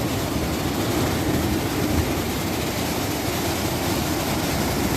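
Steady rushing noise of wind and surf, with no distinct single event.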